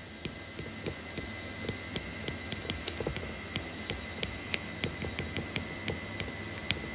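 Stylus on a pen tablet during handwriting: light, irregular ticks and taps as the pen touches down and moves, over a faint steady hum.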